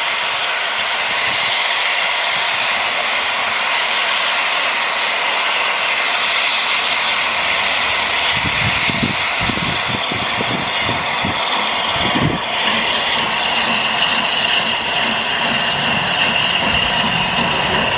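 Steam-hauled passenger train pulled by LNER Peppercorn A1 Pacific 60163 Tornado running past on departure, a loud steady rushing and rumble. Deeper thumping rumbles come in about halfway through.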